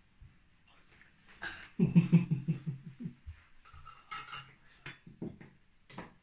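A hand-held can opener being worked on a metal tin can, with a loud run of rapid clicking strokes about two seconds in and lighter metallic clinks after it.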